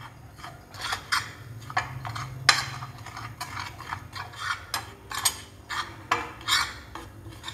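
A metal spoon scraping and clinking on a ceramic plate as dry ground spices and chilli flakes are mixed together, in uneven strokes about two a second.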